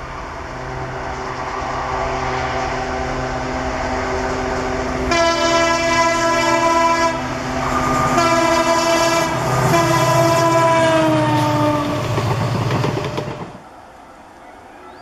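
An Indian Railways WDP4 diesel locomotive, with its EMD two-stroke engine, approaches under power, getting louder. From about five seconds in it sounds its horn in long blasts, and the horn's pitch drops as it passes. The wheels clatter over the rail joints before the sound cuts off abruptly near the end.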